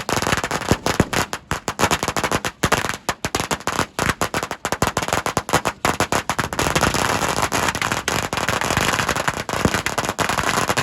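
Fireworks crackling: a rapid, continuous stream of sharp pops and crackles, densest in the second half.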